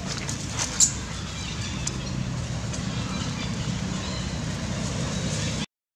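Steady low engine-like hum with a few faint ticks and one short, sharp high click about a second in; the sound cuts out abruptly just before the end.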